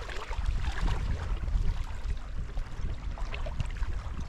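Wind buffeting the microphone in a low, uneven rumble, with water splashing and lapping against a kayak's hull and a few small knocks and rustles.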